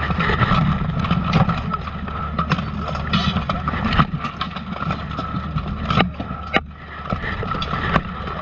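Steel plate armour and weapons clanking and knocking during a close-quarters armoured melee: irregular sharp impacts, about one or two a second, over a steady muffled rumble of bodies and gear pressing and rubbing.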